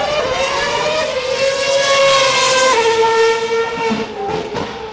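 A Formula One car's 2.4-litre V8 engine at high revs passing by: a high, pitched engine note that grows loud to a peak two to three seconds in, drops in pitch as the car goes past, then fades.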